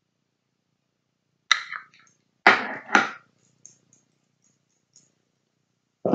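Makeup products being handled and set down, giving sudden clatters: one knock about a second and a half in, then two louder ones about half a second apart, followed by a few faint small clicks.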